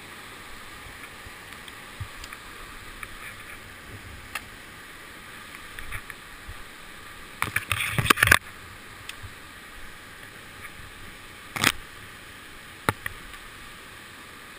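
Whitewater rapid rushing steadily below, with knocks and rustles of brush and branches against the wearer as he pushes through undergrowth on foot. These are loudest in a burst about eight seconds in and come again about twelve and thirteen seconds in.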